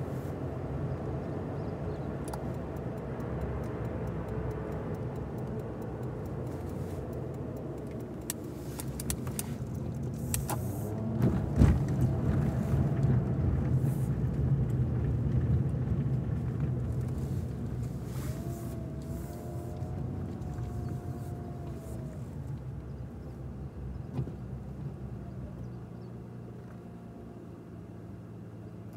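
Car driving, heard from inside the cabin: a steady low engine and road rumble that grows a little louder about a third of the way in, then eases off as the car slows to a crawl near the end.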